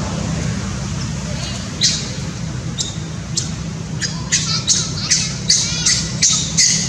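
Macaque screaming in short, high-pitched squeals: a few single calls at first, then a fast run of them, about three a second, in the second half.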